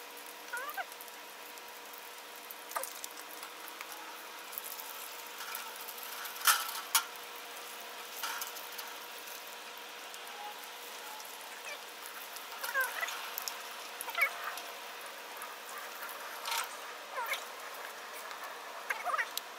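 An egg sizzling in a small skillet over the hissing burner of a Coleman 425 liquid-fuel camp stove. A spatula taps and scrapes the pan a few times as the egg is flipped over easy. Several short, high, wavering whines come in during the second half.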